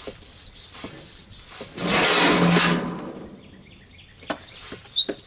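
Hand floor pump inflating a riding mower's tire: faint repeated pump strokes, one loud rush of air about two seconds in that lasts around a second, and a few sharp clicks near the end.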